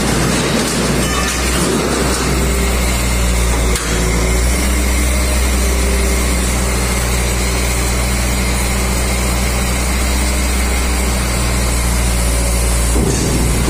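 Heavy truck's engine running at a steady speed, driving the truck-mounted hydraulic grapple crane that is lifting scrap steel. The steady engine tone gives way to a noisier rush about a second before the end.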